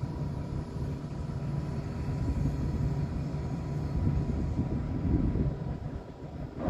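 Low, steady rumble of a vehicle running, with a thin steady whine above it and the rumble swelling a few times.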